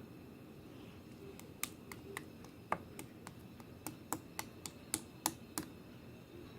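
An irregular run of about fifteen sharp clicks or taps over some four seconds, starting about a second and a half in, over a faint steady room hum.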